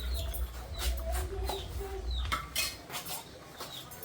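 Light clinks and knocks of a cooking pot and spoon, with short falling chirps of birds in the background. A low rumble stops a little past halfway.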